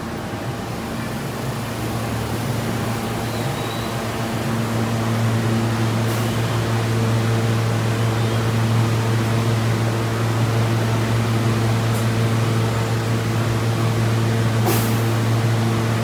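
Alstom R160A subway car standing with its doors open, its air-conditioning and auxiliary equipment giving a steady low hum that grows a little louder about five seconds in. Three brief sharp clicks sound over it, the last and loudest near the end.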